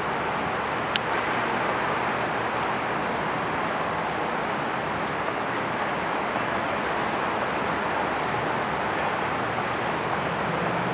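Steady harbourside background noise: an even hiss over a low, steady hum, with a single sharp click about a second in.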